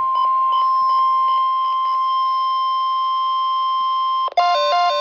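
NOAA Weather Radio alert tone: a single steady high beep at about 1050 Hz, held for about four seconds, then cut off. Right after it, a repeating two-note electronic chime begins.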